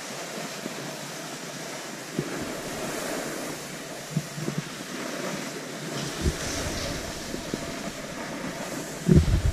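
Skis and a snowboard sliding over groomed snow: a steady hiss with a few faint knocks. Near the end wind starts buffeting the microphone.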